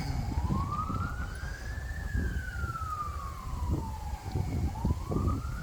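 A distant siren wailing, its pitch rising and falling slowly about every four and a half seconds, over a low rumble.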